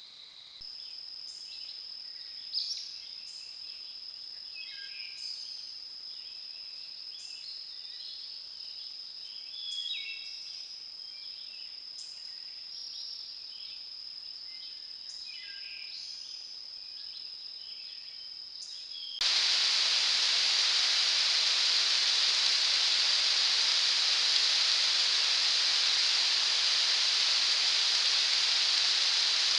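Field ambience through a trail camera's microphone: a steady high-pitched whine with scattered short chirps and calls, like insects and birds. About two-thirds of the way in it switches suddenly to a loud, steady hiss.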